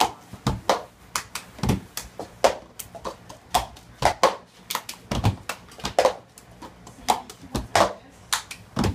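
Hand claps and plastic cups tapped and set down on a wooden floor in a cup-game rhythm, a run of sharp taps about two to three a second.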